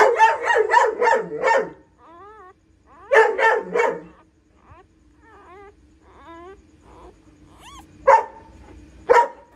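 A dog barking in rapid runs: about six quick barks at the start, another bout about three seconds in, and single barks near the end. Between the barks come thin, wavering, rising-and-falling squeaks, the cries of a newborn puppy.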